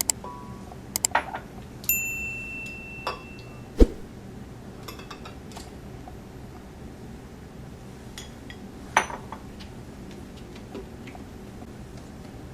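Scattered kitchen clinks and knocks of hard objects such as glass and dishware, one clink ringing briefly, with a heavier thump about four seconds in, over a faint steady background.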